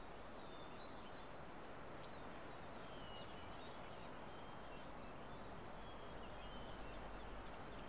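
Quiet outdoor ambience: a steady low hiss with faint birdsong, short chirps coming now and then.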